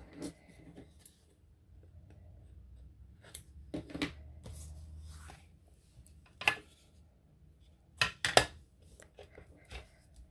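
A hand paper-cutting tool clicking and snipping through paper several times in uneven groups, the loudest two strokes close together about eight seconds in.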